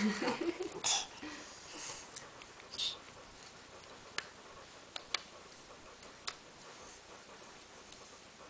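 Light clicks and taps of jigsaw puzzle pieces being handled and set down on a wooden parquet floor: about four sharp, isolated clicks in the second half. Near the start, a toddler's brief vocal sound and a couple of short breathy noises.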